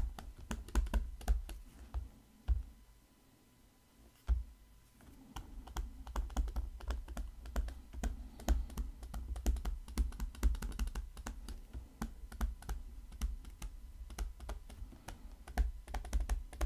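Stylus tapping and scratching on a tablet screen while handwriting, heard as a rapid, irregular run of light clicks with dull low thumps. It pauses briefly between about two and four seconds in.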